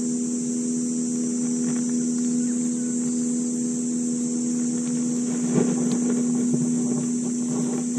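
A steady low motor hum from the boat, under a constant high drone of insects. A few faint clicks and rustles of a hand on the spinning reel come a little past halfway.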